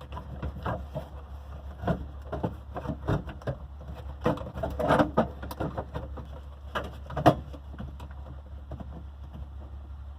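Scattered light clicks, taps and knocks of hands working up under an old pickup's dashboard, fumbling at the speedometer cable's release clip, over a steady low rumble.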